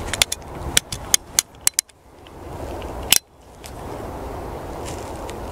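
A single-action .45 Colt revolver being worked by hand. A run of small sharp mechanical clicks comes first as the hammer is drawn back. A little past halfway a single louder click follows as the hammer falls on a live round without firing it: a misfire test, the third dry click.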